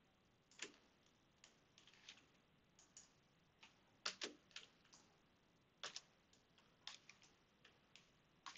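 Faint computer keyboard keystrokes: a dozen or so separate, irregular clicks with short pauses between them.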